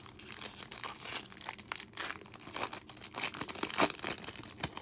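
Foil wrapper of a Topps baseball card pack crinkling and tearing as it is ripped open and peeled back from the cards, a run of irregular crackles with the loudest a little before the end.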